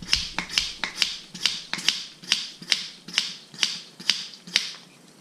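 Hand-held wine vacuum pump being worked to draw the air out of an opened wine bottle: about a dozen quick strokes, two to three a second, each a sharp click with a short hiss of air. The pumping stops near the end.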